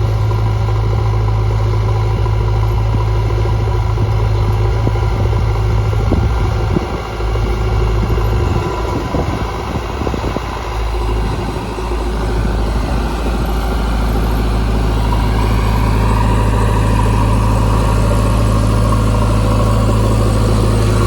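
JCB 3DX backhoe loader's diesel engine running steadily while the machine works, with a few knocks and scrapes about a third of the way through.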